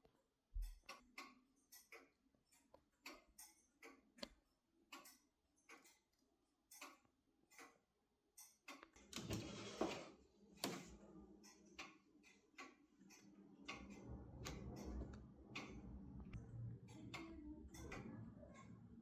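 Pendulum clock movement of an 1850s Black Forest grandfather clock ticking faintly and evenly. About halfway through, a low rumbling noise joins in and continues under the ticking.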